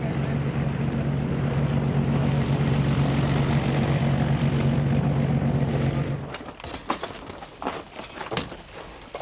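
Steady drone of a light twin-engine aircraft's engines running on the ground, which cuts off abruptly about six seconds in. After that come scattered knocks and clunks of equipment cases being set down.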